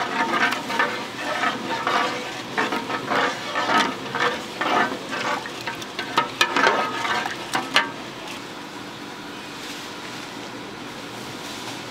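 Cooking at a street-food stall: a utensil stirring and knocking in a pan of simmering street food, with many sharp clatters over a sizzling hiss for about eight seconds, after which only the steady hiss goes on.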